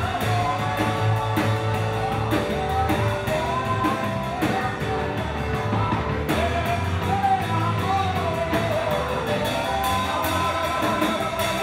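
Live band playing a worship song: a drum kit keeping a steady beat under bass and guitar, with a voice singing over it.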